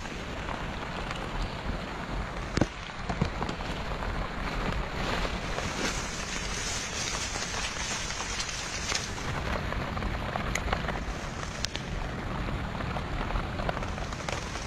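Steady rain falling, with scattered sharp ticks and one louder knock about two and a half seconds in.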